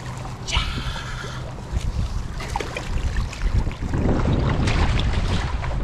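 Wind buffeting the microphone, with water sloshing and splashing at the shoreline as a striped bass is lowered into the lake and released. The rumble of the wind grows louder over the last couple of seconds.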